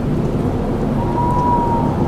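Strong wind rushing in a steady low roar, with a thin, high howling whistle rising in about halfway through and held.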